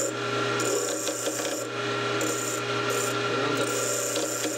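Flat file held against a wooden wheel blank spinning on a wood lathe, rasping as it takes the little nibs off, in about five passes that come and go over the steady hum of the running lathe.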